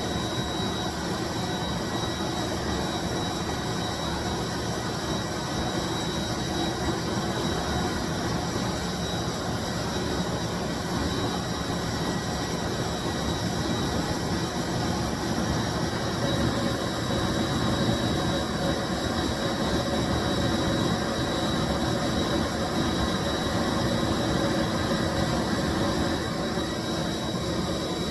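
1995 Bissell deep cleaning machine (carpet cleaner) running steadily: the motor's rushing air noise with a thin, high whine held on top.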